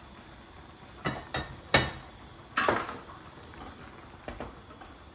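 Kitchen cookware clatter: a pot lid is set down with a few knocks and clinks, loudest about two seconds in. Then a wooden spoon stirs a white enamelled casserole of simmering mutton, tapping lightly against the pot.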